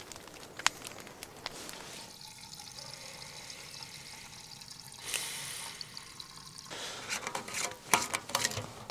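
Fire burning and crackling softly, with scattered sharp pops and a stretch of hissing about five seconds in.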